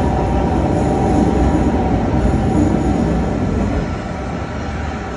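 Metro train pulling out of an underground station: wheels rumbling on the rails under a steady whine, the noise easing after about three and a half seconds as the last car passes.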